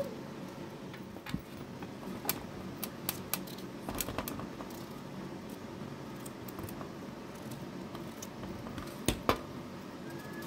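Scattered light clicks and knocks over a steady low background hum, the loudest two close together near the end.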